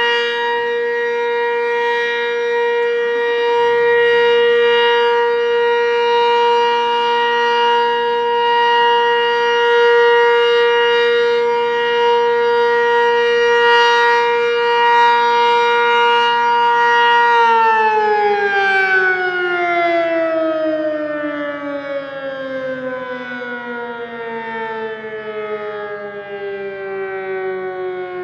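Sentry 20V2T two-tone electromechanical siren sounding a steady, loud chord at full speed, then shut off about two-thirds of the way through and winding down, its chord falling steadily in pitch.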